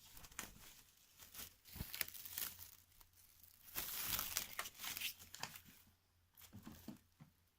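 Plastic cling film crinkling and rustling as it is pulled off the roll and stretched over a seed box, with a longer, louder crackling stretch around the middle.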